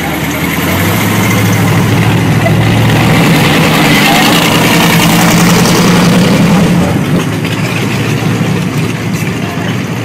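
A classic car's engine drives past. Its drone rises in pitch and grows louder, peaks about four to six seconds in, then fades. Crowd chatter runs underneath.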